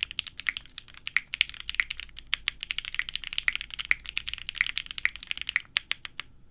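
Fast typing on a mechanical keyboard fitted with EnjoyPBT ABS doubleshot keycaps over Gateron CJ switches: a dense, rapid clacking of keystrokes, several a second, with a short lull near the end.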